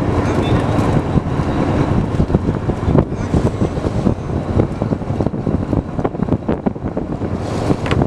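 Fishing boat's engine running with wind buffeting the microphone, over a steady clatter of knocks and rustles as the mesh net and its catch are hauled about on deck.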